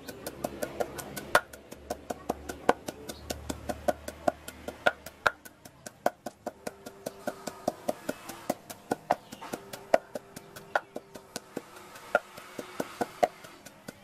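A wooden pestle pounding crushed peanuts and chili in a wooden mortar, making a steady knocking of about three to four strokes a second.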